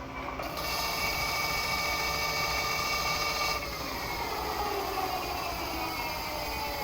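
Metal lathe running with a steady multi-tone machine whine over a rushing noise, which eases in pitch from about halfway through.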